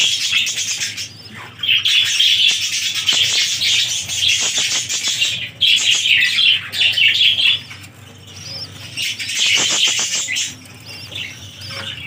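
Budgerigar colony chattering: many budgies warbling and chirping together in dense stretches, with short lulls every few seconds.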